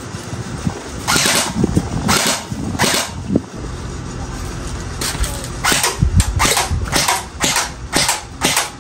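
Airsoft gun firing about ten shots at a paper target: three single shots about a second apart, then a quicker string of six or seven shots a couple of seconds later.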